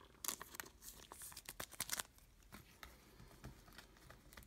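Faint, scattered clicks and rustles of glossy trading cards being handled and set down on a table, mostly in the first two seconds.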